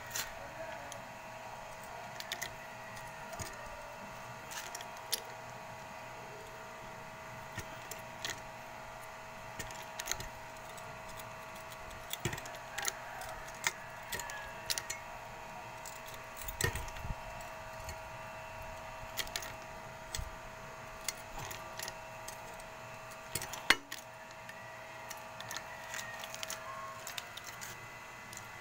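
Scattered light metallic clicks and clinks of small metal parts being handled, irregular and a few seconds apart, over a faint steady hum that stops near the end.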